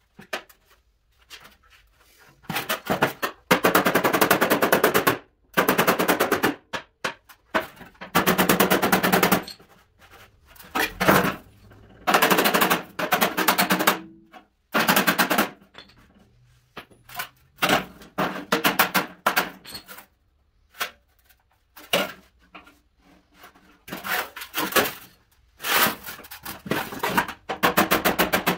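Body hammer striking a steel car fender in fast runs of blows, a second or two each, with short pauses between: dent work with hammer and dolly.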